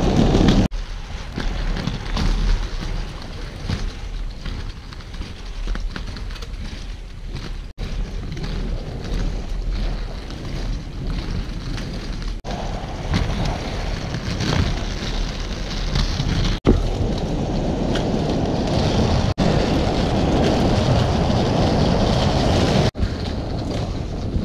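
Inline skate wheels rolling over street paving, with wind buffeting the microphone. The noise drops out for an instant several times.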